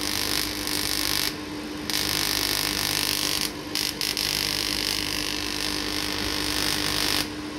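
Spark from a continuous-wave vacuum tube Tesla coil, driven by an 830B tube, hissing as the arc is drawn from the top load to a hand-held rod. The hiss breaks off briefly about a second and a half in and again around three and a half to four seconds, then stops near the end. A steady hum runs underneath.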